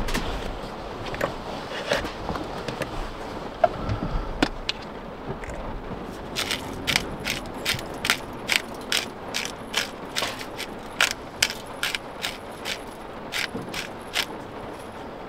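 A few scattered knocks, then from about six seconds in a handheld spice grinder mill being twisted over the pan, its ratcheting burr clicking in a steady rhythm of about two to three clicks a second until it stops near the end.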